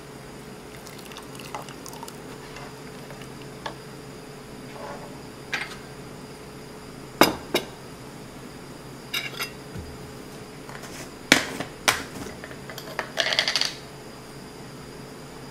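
Kitchen utensils knocking and clinking on a soup pot and a jar of bouillon powder: a few sharp knocks, then a quick run of small rattling clicks near the end as a spoon scoops in the jar. A faint steady hum sits underneath.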